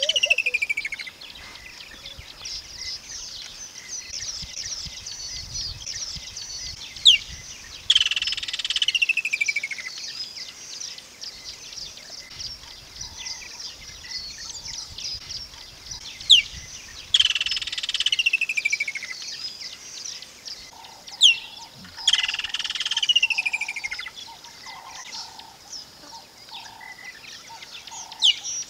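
Woodland kingfisher calling: a sharp high note followed by a loud trill that falls in pitch, repeated about four times every five to nine seconds.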